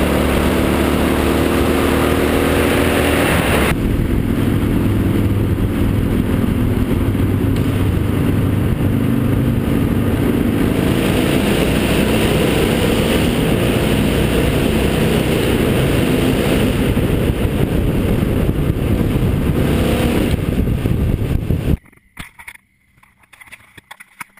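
Motorcycle riding at speed, heard from a camera mounted on the bike: the engine note rises over the first few seconds under acceleration, then gives way to a steady rush of engine and wind noise, including a stretch through a tunnel. It cuts off abruptly near the end, leaving a few faint clicks.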